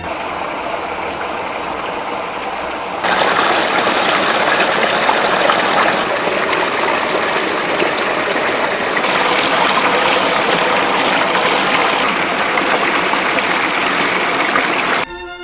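Running water, a steady rushing hiss like a small stream, with sudden level jumps about every three seconds where clips are cut together.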